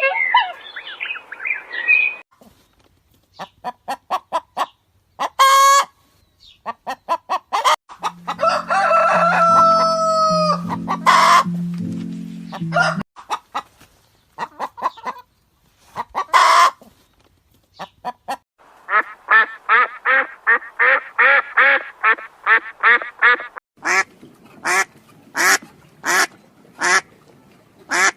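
Chickens clucking in runs of short, quick calls, broken by a few longer pitched rooster-like calls, with a rapid burst of clucking in the second half. A steady low stepped tone runs underneath for a few seconds in the middle.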